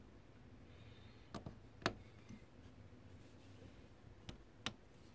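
LEGO Technic plastic parts being pressed and snapped together by hand: four sharp clicks in two pairs, one pair just under two seconds in and another just past four seconds, over a faint room hiss.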